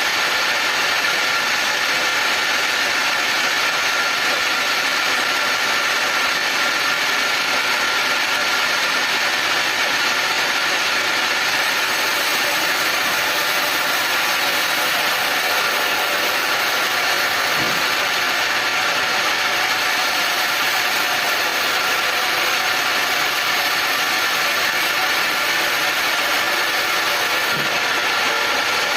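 Sawmill machinery running steadily: an even mechanical noise with several constant whining tones, no change in speed or load.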